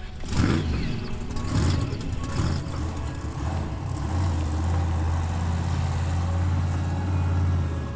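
Monster truck's supercharged V8 engine revved in three quick blips, each falling away, then running on with a steady low drone as the truck drives through mud.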